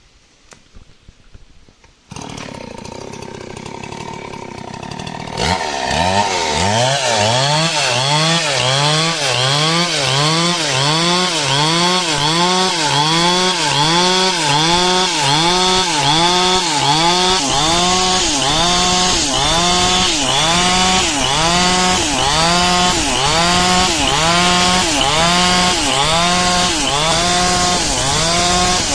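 Stihl chainsaw cutting lengthwise through coconut palm wood. It comes in about two seconds in and gets louder about five seconds in, with the engine's pitch rising and falling about once a second as it cuts.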